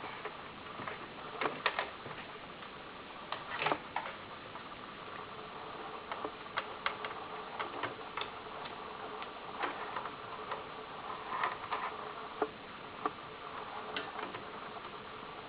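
Irregular light clicks and taps, a few close together in places, over a faint steady hum.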